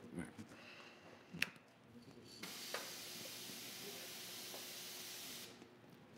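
Aerosol can of spot blender spraying in one steady hiss lasting about three seconds, starting about two and a half seconds in, as it burns dry overspray specks into a fresh gloss black top coat. A single sharp click comes about a second and a half in.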